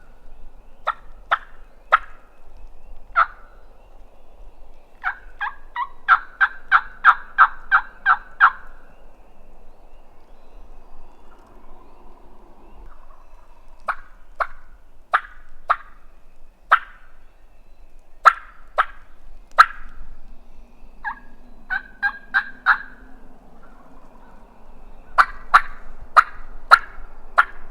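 Wild turkey gobblers gobbling in repeated bursts of short, sharp notes. The longest burst is a quick run of about eight notes a little over halfway through the first third, and at least three birds are calling.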